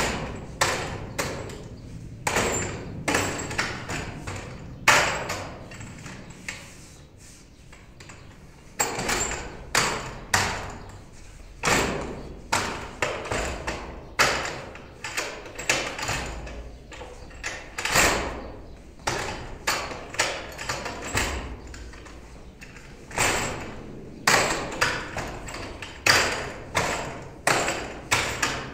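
Forearms and hands striking the arms and trunk of a wooden dummy (mook yan jong) while running through the dummy form: a string of sharp wooden knocks, some single and some in quick clusters of two or three, each ringing briefly. The strikes ease off for a couple of seconds about six seconds in, then pick up again.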